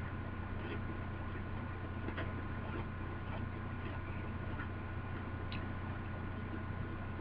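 Someone chewing a crunchy Keebler Fudge Stripes cookie: scattered, irregular small crunching clicks over a steady low electrical hum.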